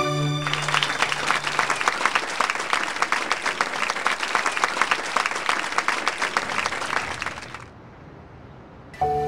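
Audience applauding, a dense patter of many hands clapping that dies away about three-quarters of the way through. Music comes back in just before the end.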